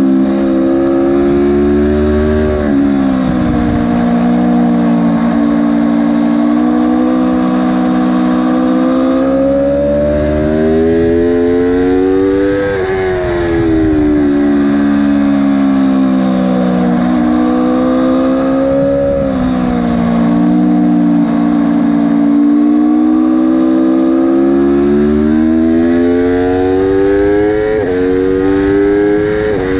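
Aprilia sport bike engine heard from on board under hard acceleration: the revs climb steadily and drop sharply at each upshift, about four times, over a steady rush of wind.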